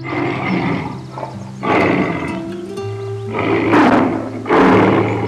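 A tiger roaring in four rough bursts about a second apart, over steady background music.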